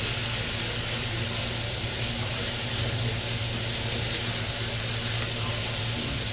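Sliced vegetables and pork sizzling in a nonstick frying pan, stirred and tossed with a wooden spatula: a steady frying hiss over a low hum.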